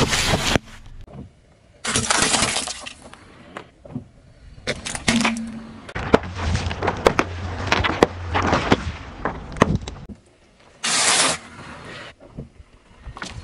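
Car tyre rolling over and crushing plastic snack bags and drink pouches: several spells of sharp popping, crunching and crackling plastic, with short pauses between them.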